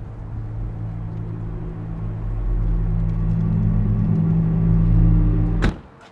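A low, steady rumbling drone that swells and then cuts off abruptly about five and a half seconds in with a single sharp knock, as a car door is shut.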